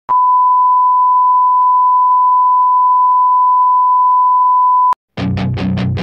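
A steady, high-pitched test-card tone, a single pure beep held for nearly five seconds, cutting off suddenly. After a short gap, music with a fast, driving beat starts.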